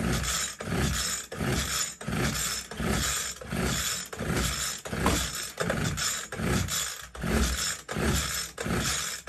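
Two-stroke hedge cutter engine cranked by its recoil pull-start about ten times, about once a second, each pull a rasping whir of the rope and the engine turning over. The spark plug is out and a compression gauge is fitted: this is a compression test, which reads about 140 psi.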